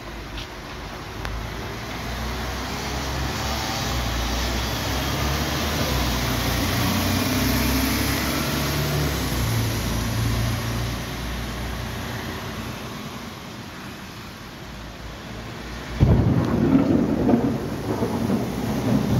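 Thunder: a long, low rolling rumble that swells and then dies away, followed near the end by a sudden, louder clap that keeps rumbling.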